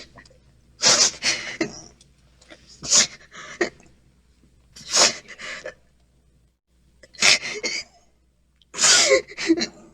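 A young girl crying in loud, breathy sobbing bursts, one about every two seconds, the later ones ending in a short falling wail.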